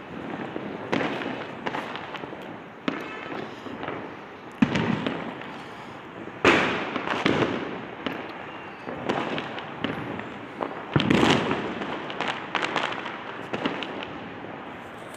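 Firecrackers going off: a string of sharp bangs and crackles, each trailing off, the loudest about four and a half, six and a half and eleven seconds in.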